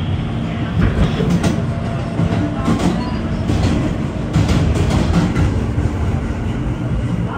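Alstom R160A New York City subway car running on open track: a steady low rumble of the wheels and running gear, with sharp clacks as the wheels cross rail joints at irregular moments.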